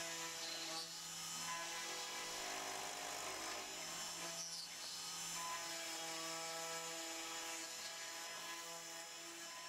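High-Z CNC-STEP router spindle running while a 3 mm ball-end cutter mills olive wood. It is a steady machine whine made of several tones, some of which change every second or two as the cut moves.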